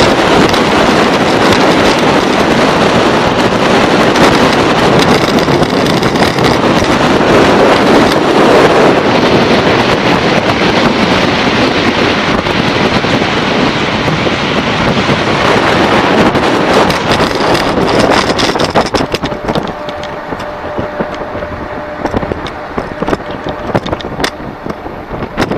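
Loud wind rushing over the microphone of a moving vehicle, with its motor running underneath; the rush eases off about three-quarters of the way through.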